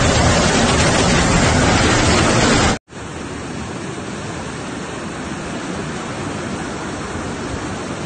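Fast floodwater rushing through a street in a steady, loud stream of noise. It breaks off for an instant about three seconds in and comes back quieter.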